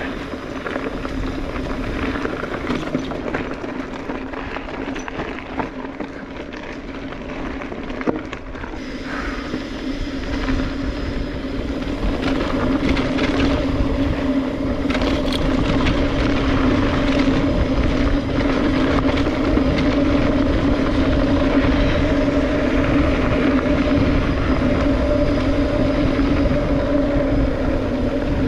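Mountain bike rolling along a dirt trail, its tyres crunching over dirt and gravel with scattered knocks and rattles from the bike. A steady hum runs under it and gets louder about twelve seconds in as the bike picks up speed.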